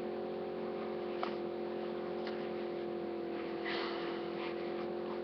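Steady hum made of several constant tones, with a brief light crinkle of plastic packaging being handled about four seconds in.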